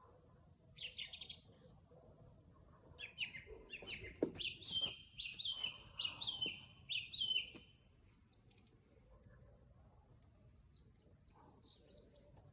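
A bird singing in phrases of sharp high notes: a run of five or so repeated hooked notes in the middle, then a brief very high trill, with more phrases near the end.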